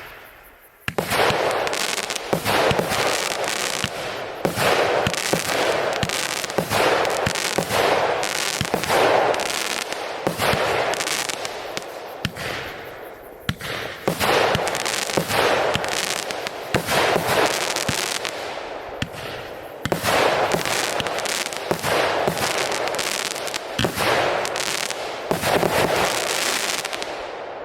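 A 25-shot firework cake firing shot after shot in quick succession, the sharp reports of the launches and breaks overlapping with a continuous dense crackle from the crackling chrysanthemum bursts. The barrage starts about a second in.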